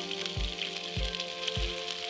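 Background music with a steady beat, a kick drum about every 0.6 seconds under held notes, over a steady hiss.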